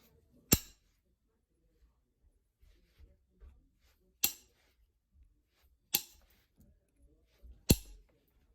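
Novaculite being knapped: four sharp stone clicks, each with a brief ring, as flakes snap off the point, spaced one to two seconds apart, with faint small ticks between.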